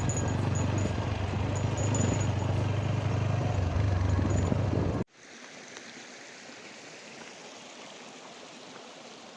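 Motorcycle on the move: a loud low rumble of engine and wind on the microphone. It cuts off abruptly about five seconds in, giving way to a much quieter steady rushing hiss.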